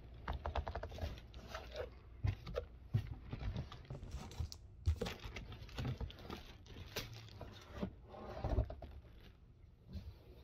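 Cardboard packaging being handled: boxes scraped and slid against each other, with rustling, crinkling and scattered light taps and knocks.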